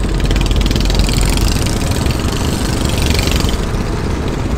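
Small boat engine running steadily, a fairly loud constant rumble.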